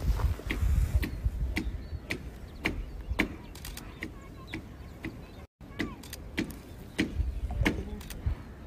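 Camera shutter clicking again and again in single, irregularly spaced shots, about two or three a second, with a low rumble in the first second. The sound cuts out briefly about halfway through.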